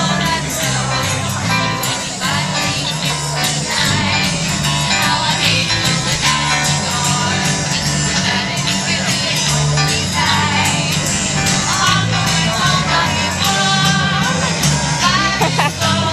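Music with singing and a steady bass line.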